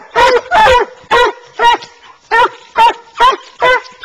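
Coonhounds barking at a tree, about two barks a second with a short pause near the middle of the run. This is tree barking, the sign that the hounds have their quarry up the tree. The pack is two Treeing Walkers and a black and tan.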